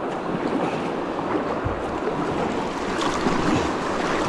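Fast, choppy river water rushing and splashing around a kayak's hull as it is paddled across the current, with paddle strokes in the water. A couple of low thumps of wind on the microphone.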